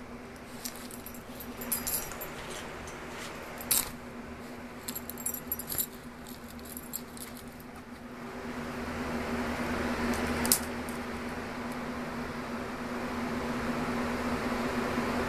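Light metallic jingling and scattered clicks through the first half, then a steady rushing noise comes up about eight seconds in and holds, over a low steady hum.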